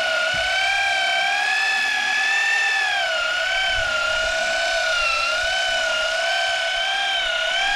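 A motor whining steadily, its pitch drifting slowly up and down.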